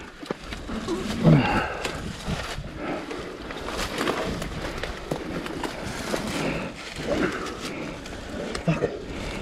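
Boots scuffing and crackling through dry leaf litter and twigs as a dirt bike is pushed and pivoted over a rock by hand, with short irregular knocks and rustles.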